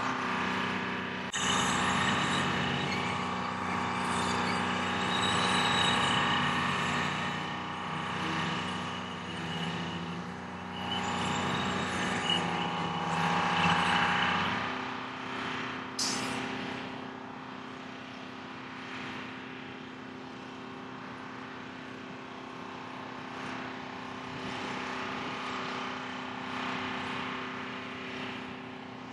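A rough-terrain crane's diesel engine running under load for about the first half, then dropping to a steady idle hum. There is a single sharp click just past the middle.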